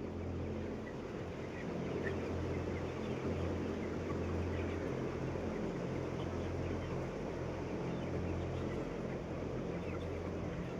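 A flock of broiler chickens clucking and cheeping, with many short calls scattered throughout, over the steady low hum of the poultry shed's large ventilation fans.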